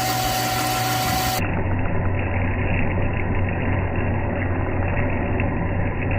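A shop machine's electric motor running steadily with a deep hum, during the repair of stripped threads in a cylinder head's cam end caps. The sound changes abruptly about a second and a half in.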